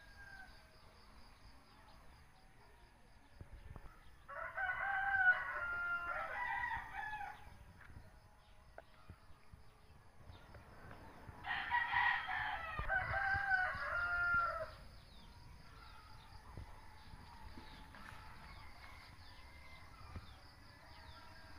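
A rooster crowing twice, each crow about three seconds long, the second about seven seconds after the first.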